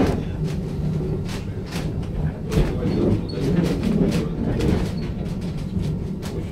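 Heidelberger Bergbahn funicular car running on its rails, heard from inside the car: a steady low rumble with sharp clicks and knocks from the wheels and track every second or so.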